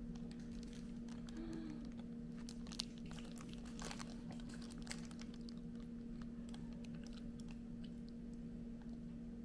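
Quiet eating sounds: a soft bread bun being torn apart and chewed, with a wrapper handled, giving small scattered crackles and clicks, mostly in the first half. A steady low hum runs underneath.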